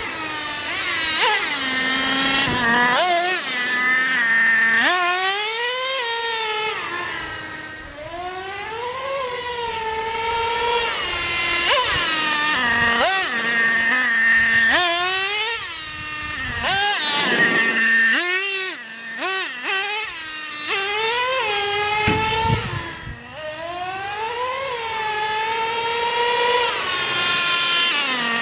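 Traxxas Revo 3.3 RC truck's nitro two-stroke engine revving up and down over and over, its high-pitched whine climbing and falling in long sweeps with short steady stretches between. The engine is new and still being broken in.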